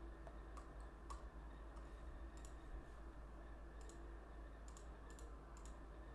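Computer mouse clicking: about eight short, sharp clicks spread through the few seconds, several heard as a quick double tick of button press and release. A faint steady low hum lies underneath.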